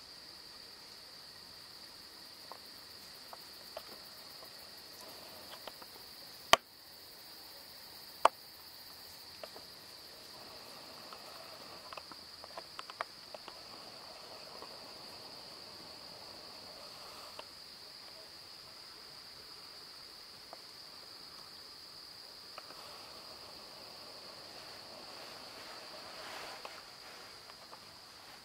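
A steady, high-pitched chorus of crickets with no break. Two sharp clicks come about six and eight seconds in, and small scattered ticks and light rustles sit under the chorus.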